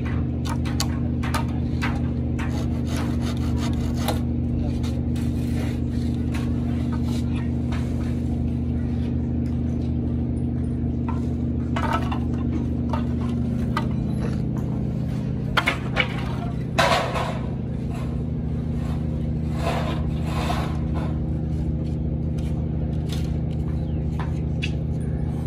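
Handsaw cutting a timber strip in irregular rasping strokes, over a steady low machine hum that runs throughout and cuts off suddenly at the end.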